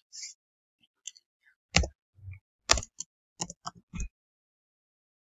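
A few separate keystrokes on a computer keyboard, irregularly spaced, most of them between about two and four seconds in.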